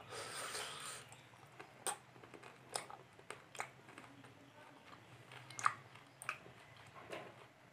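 Close-up chewing of a mouthful of rice and fish curry, with scattered wet mouth clicks and a soft hiss in the first second.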